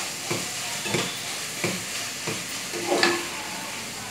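Tomato-onion masala sizzling in oil in a stainless steel pan, stirred with a perforated metal spoon that scrapes and knocks against the pan about every two-thirds of a second.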